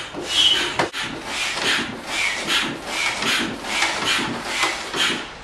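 Foot pump inflating an inflatable boat's side tube through a hose: a rhythmic rush of air about two and a half strokes a second, some strokes carrying a faint whistle. A sharp click about a second in.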